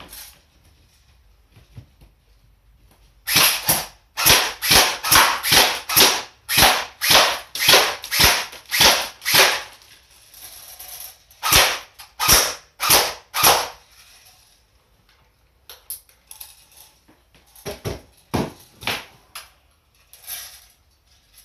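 Airsoft HK416 replica rifle firing single shots, about two a second, a dozen or so in a row, then a short pause and a few more. Near the end come lighter clicks and knocks of the rifles being handled.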